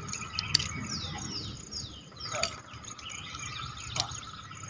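Birds chirping in quick falling notes over a steady insect drone. Three short sharp sounds come evenly about a second and a half apart, in step with the counted nunchaku strikes.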